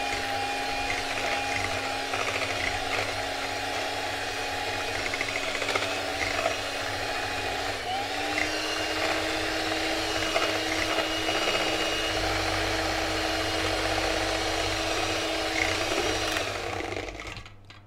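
Electric hand mixer whirring steadily as its beaters whip eggs and sugar into a foam in a stainless steel bowl. Its pitch steps up slightly about halfway through, and near the end the motor winds down and stops.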